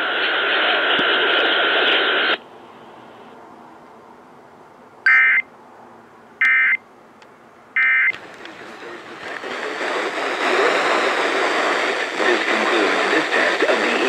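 FM radio playing the close of an Emergency Alert System test. The narrow-band, phone-like voice message cuts off about two seconds in, and after a short hiss come three brief bursts of data tones about a second and a half apart: the EAS end-of-message code. The station's regular programme audio then comes back in.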